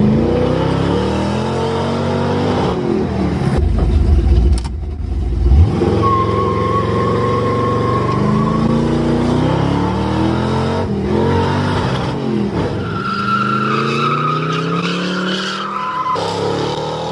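Heavy diesel construction machinery running hard, its engine pitch rising and falling again and again as it revs up and down under load. A high steady whine comes in twice over the top.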